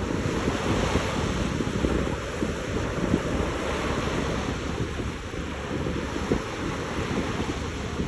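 Small sea waves breaking and washing up a sand-and-pebble shore in a steady surf, with wind buffeting the microphone as a fluttering low rumble.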